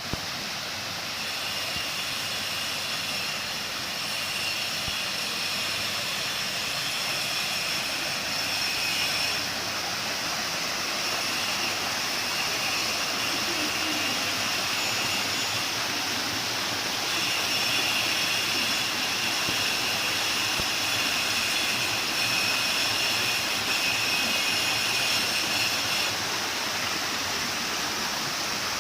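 Water pouring steadily over a stone waterfall, a constant rushing splash.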